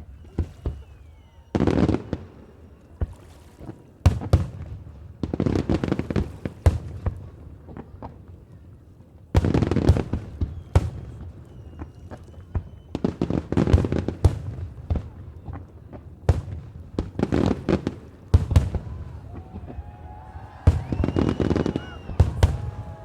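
Aerial fireworks bursting in quick clusters of sharp bangs and crackling, with heavy volleys about two, four, nine and thirteen seconds in.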